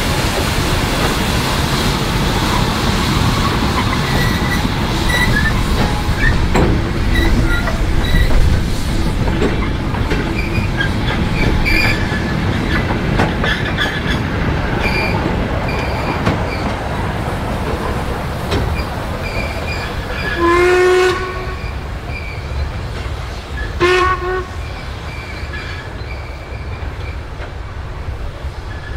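Steam train running with a steady rumble and rail clatter. Its whistle sounds twice: a blast of just under a second about two-thirds of the way through, then a shorter one a few seconds later.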